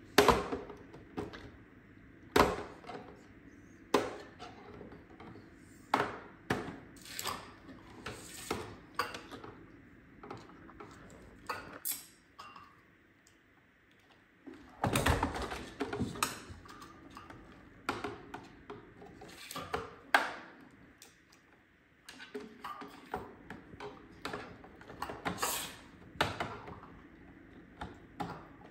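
Screwdriver working the screws of an iRobot 960 robot vacuum's plastic housing: irregular sharp clicks, taps and knocks of metal on plastic, with a quieter stretch about halfway before a louder knock.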